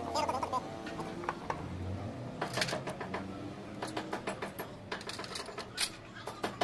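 Irregular metallic clicks and knocks of a starter motor being handled and seated against a diesel truck engine's flywheel housing, coming thicker from about halfway through.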